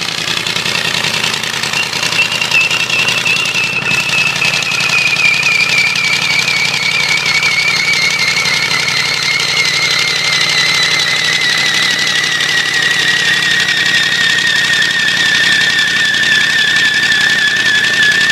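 Ford 351 Windsor V8 running steadily with a spun bearing, knocking. A high, wavering squeal slides slowly down in pitch throughout.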